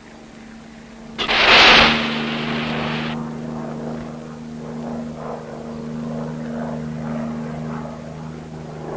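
A propeller-driven target drone is launched: a loud rushing burst about a second in, lasting about two seconds, then the drone's engine drones steadily as it flies off.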